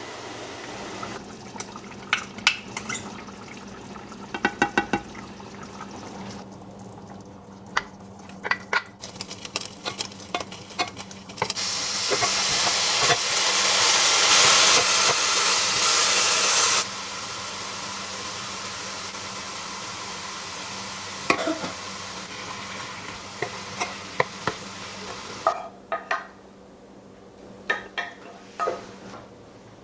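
Home kitchen cooking sounds: utensils clinking against pans and dishes, and a loud rushing hiss of frying or running water for about five seconds in the middle that stops abruptly.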